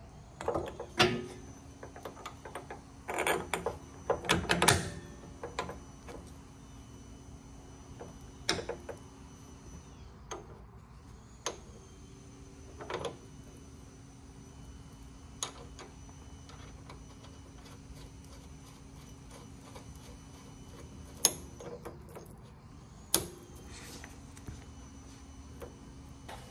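Scattered clicks and knocks, busiest in the first five seconds with a few single ones later, as a C3 Corvette's rear leaf spring link bushing, its metal retainer cup and nut are handled and fitted onto the spring link bolt. A steady faint hum runs underneath.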